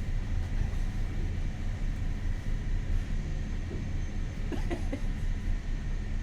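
Motor yacht's inboard engine running steadily under way, a low even hum, with a brief higher squeak about four and a half seconds in.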